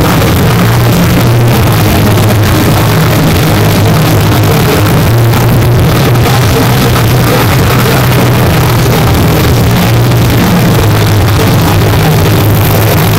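Electric tattoo machine buzzing steadily and loudly as the needle works colour into the skin of a forearm.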